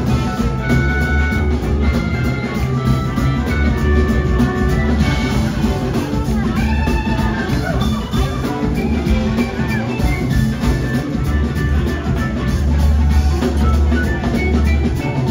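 A live band playing: drum kit, bass, electric guitar and keyboards, with trumpets and a trombone playing held lines over the rhythm section.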